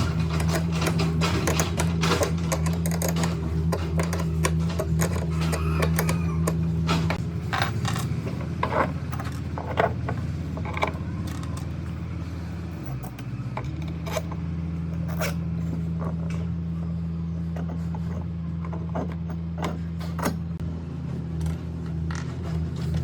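A steady low motor hum with many sharp clicks and knocks of tools and wood being handled over it; the hum drops out briefly about halfway through.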